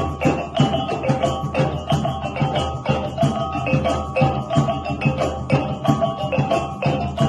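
Background music with a quick percussive beat, tambourine-like shakes and clicks over sustained melodic notes.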